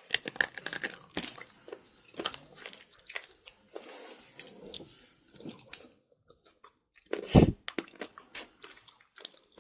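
Slate pencil being chewed: a run of crisp, crackling crunches, densest at the start, with one loud thump about seven seconds in.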